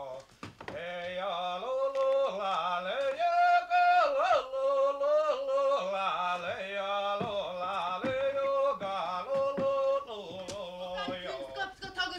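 Music: a voice singing long held, wavering notes over a low steady drone.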